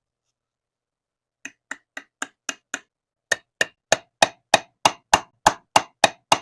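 Hammer strikes: six light taps about four a second, then after a short pause eleven harder, evenly paced strikes about three a second.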